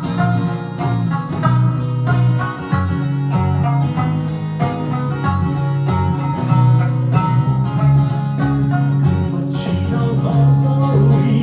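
Electric sanshin, the Okinawan three-stringed lute, plucking a melody in quick notes over a sustained low bass accompaniment.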